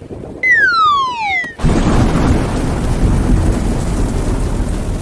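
A falling whistle sound effect that glides steadily down in pitch for about a second. It is followed at once by a loud, thunder-like rumbling rush of noise that carries on to the end.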